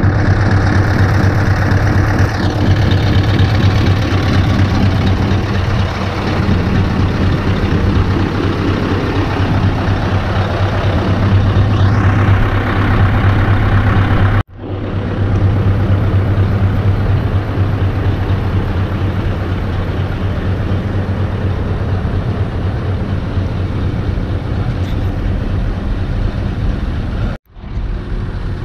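Heavy truck diesel engines idling with a steady low drone. The sound cuts off abruptly and picks up again about halfway through and again near the end.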